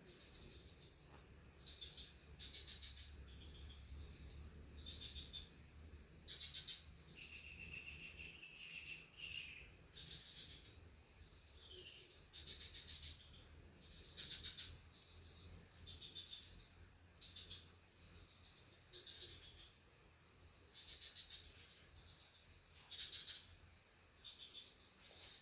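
Faint insect chirping at a low level: a high, steady trill that breaks off every second or two, with short buzzy bursts between.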